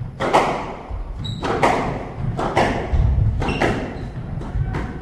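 Squash ball cracking off rackets and walls during a rally, about once a second, with short squeaks of court shoes and footfalls on the wooden floor.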